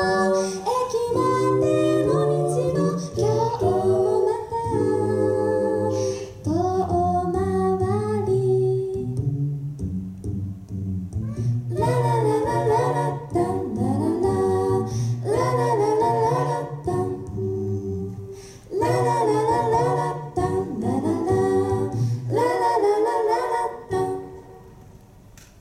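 Mixed-voice a cappella group singing in harmony, with sung lead lines over a vocal bass line and no instruments; the song ends near the end.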